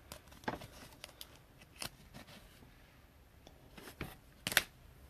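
Trading cards being handled and slid against one another: a few short rustles and clicks, the loudest near the end.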